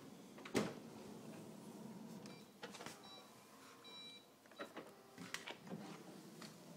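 Dishwashers running a wash cycle very quietly, a faint steady hum. A sharp click comes about half a second in, brief high beeping tones sound around the middle, and a few small clicks follow.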